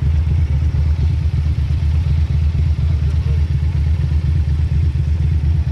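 Motorcycle being ridden at a steady speed: the engine and the wind make a steady low rumble.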